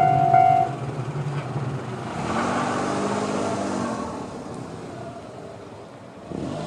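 A railway level-crossing warning bell stops less than a second in, as the crossing clears after a train. Road vehicles then drive over the crossing: one engine passes in the middle, and another comes up near the end.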